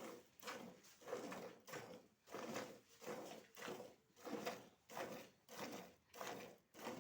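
Buffalo being milked by hand: streams of milk squirting into a pail in a steady rhythm of about two squirts a second.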